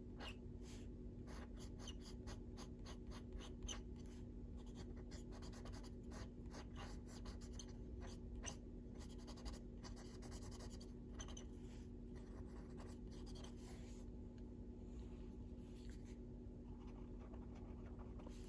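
Faber-Castell Black Edition coloured pencil scratching on paper in short, quick, repeated strokes as it works colour in small circles. Faint, over a low steady hum.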